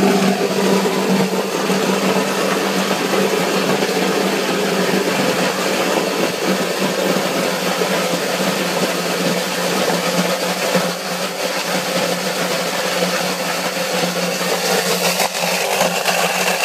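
Selections electric apple crusher running steadily: a constant motor hum with rough grinding over it as it mills apples into a fine pulp for cider.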